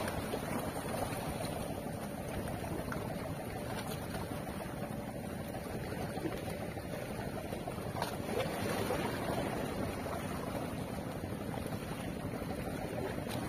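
Small sea waves lapping and washing around shore rocks: a steady wash of water with wind on the microphone.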